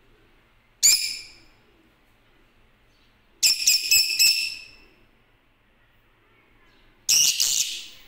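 Lutino peach-faced lovebirds giving loud, shrill, high-pitched calls: one about a second in, a quick run of four or five in the middle, and one more near the end.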